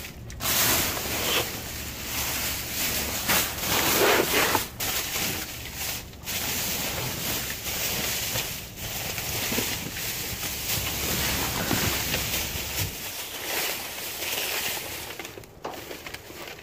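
Plastic trash bags rustling and crinkling as they are handled and shifted in a metal dumpster, with a low steady hum underneath that cuts off about thirteen seconds in.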